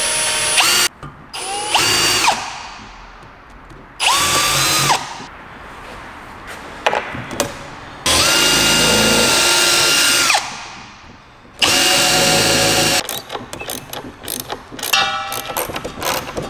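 Cordless drill running in five short bursts, each spinning up to a steady whine, as holes are drilled into plywood and screws driven; the middle run lasts about two seconds. Near the end, irregular clicking and clattering.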